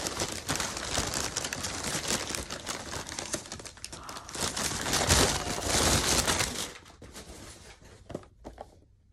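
Crumpled brown kraft packing paper crinkling and rustling as it is handled and pushed aside, loudest about five to six seconds in, then dying down to a few faint rustles near the end.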